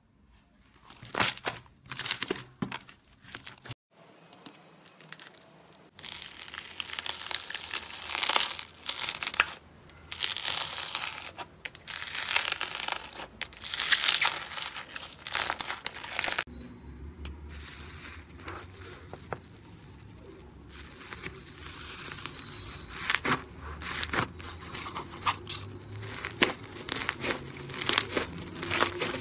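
Slime being handled in a run of short ASMR clips: irregular noisy bursts as it is pressed, pulled and squished, the texture changing abruptly at cuts about four, six and sixteen seconds in.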